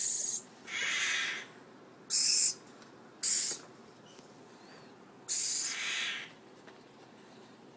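Iris lorikeet chicks giving harsh, raspy screeches: about six short calls of under a second, some high and hissy, some lower, spread over the first six and a half seconds.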